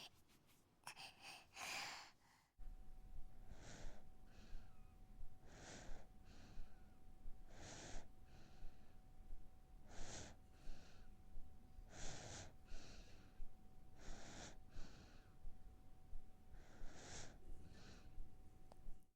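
Faint baby breathing, a soft in-and-out breath about every two seconds, over a faint steady hum.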